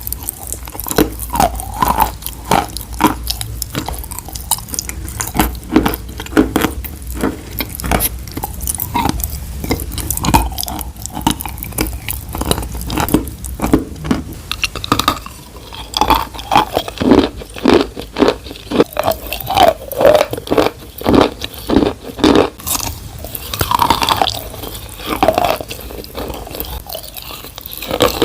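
Close-miked chewing and biting of crunchy food: wet crunches and crackles in quick, irregular succession, busier and louder in the second half.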